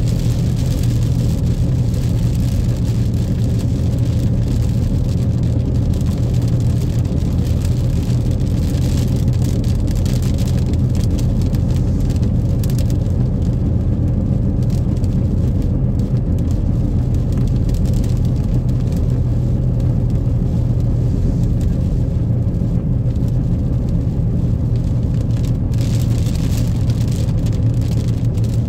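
Steady cabin noise of a moving car in the rain: a constant low engine and road hum with the hiss of tyres on a wet road.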